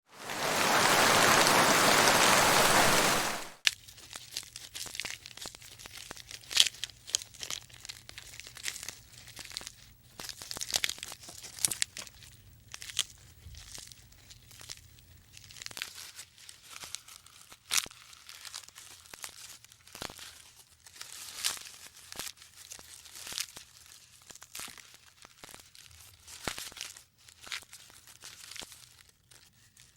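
A loud, steady hiss for about the first three and a half seconds, then irregular crackling and crunching, like a giraffe tearing and chewing leaves.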